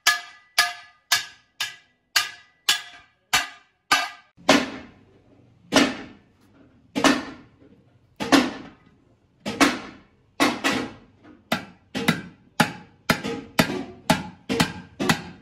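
Hand-hammer blows on a large sheet-metal cooking pot, about two a second at first, each with a short metallic ring. About four seconds in, the strikes turn duller and heavier with longer gaps, then quicken again in the second half.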